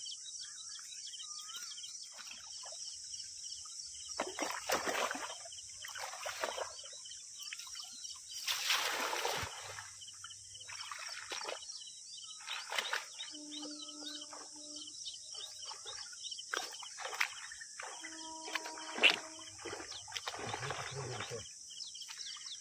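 Several irregular bursts of splashing and sloshing in shallow muddy water as fish are netted and grabbed in a drained pond, over a steady high insect hiss. One sharp knock comes late on.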